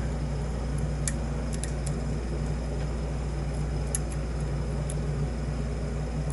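Faint, sharp metallic ticks of lock-picking tools working the pins inside a padlock's keyway, five or so scattered through a few seconds, over a steady background hum.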